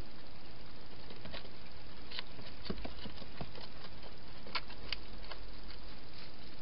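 Wild hedgehog at a clear plastic feeding box: irregular sharp clicks and taps as it feeds and moves about on the plastic, over a steady hiss.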